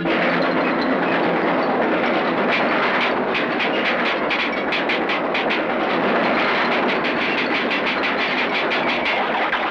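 Cartoon sound effect of a mass of tin cans rattling and clattering as they rush along, a loud, steady, dense clatter with runs of rapid clicks.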